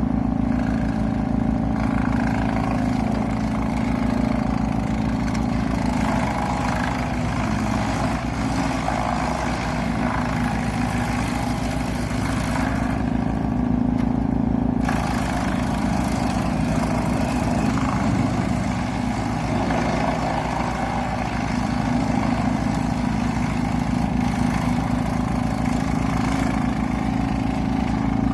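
Heavy diesel machinery running steadily under load while turning wood into sawdust, a constant engine drone with a shifting, churning mid-range noise over it.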